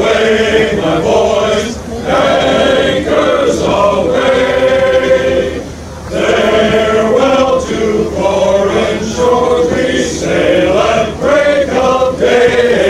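Men's chorus singing, in phrases broken by short pauses about two and six seconds in.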